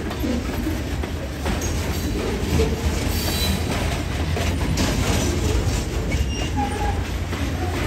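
Freight cars (covered hoppers and open-top hoppers) rolling past over rough track: a steady rumble of wheels with repeated clanks and knocks, and a few brief wheel squeals.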